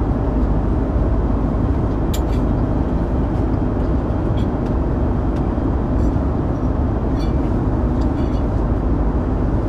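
Steady airliner cabin noise, the low drone of engines and rushing air, with a few light clicks as the tableware is handled.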